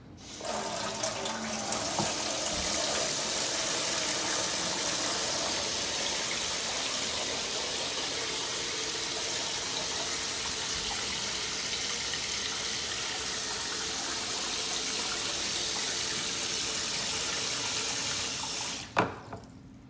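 Water pouring out of a gutter downspout and splashing into a plastic water bowl: a steady rushing splash that starts just after the beginning and cuts off suddenly near the end with a sharp click.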